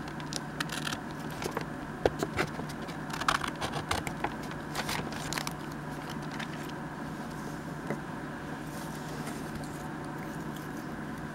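Paper being handled and moved about on a cutting mat, with light rustles, clicks and taps for the first five seconds or so, then only a steady low hum.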